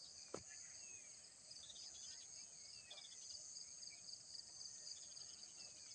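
Faint, steady chorus of insects buzzing and pulsing high up, with a few short falling bird chirps scattered through it. A single sharp click sounds about half a second in.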